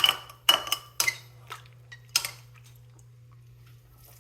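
Metal utensil clinking against a dish, about six sharp knocks in the first two seconds or so. A low steady hum sits underneath.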